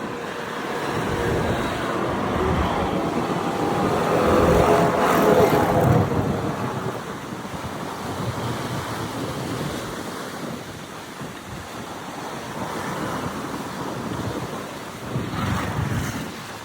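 Sea waves breaking and washing on a beach, with strong wind buffeting the microphone. One wave swells and breaks loudest about five seconds in, and a smaller surge comes near the end.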